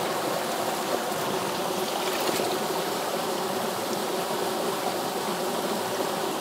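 Shallow, rocky mountain creek flowing: a steady, even sound of running water.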